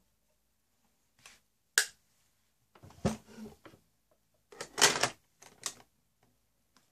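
Objects being handled and set down: a sharp click, then several short clattery bursts of knocking and rattling, the loudest near the end.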